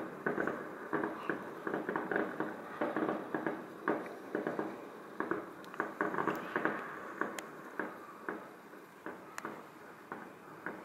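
Distant fireworks crackling and popping, several irregular pops a second, growing fainter over the last few seconds, with a few sharper cracks in between.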